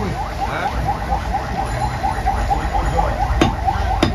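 Cleaver chopping goat meat on a wooden block, with two sharp chops near the end. Under it runs a fast, evenly repeating chirp, about four a second, over a low rumble.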